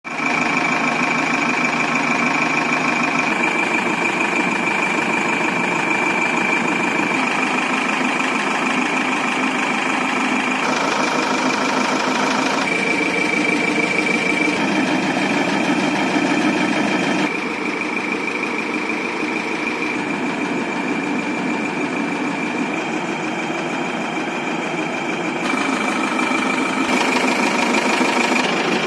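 Diesel engine of a Tata LPT 909 truck idling with a steady clatter. The sound changes abruptly several times where the recording is cut.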